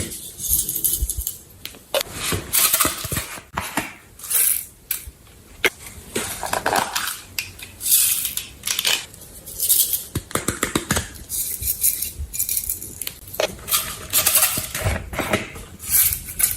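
Slime being handled and stirred: irregular wet squishes and crackles with light clinks of a container or utensil.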